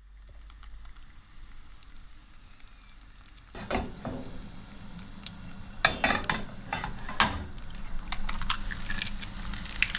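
Food sizzling in a frying pan, starting about three and a half seconds in, with scattered clicks and knocks of a utensil against the pan.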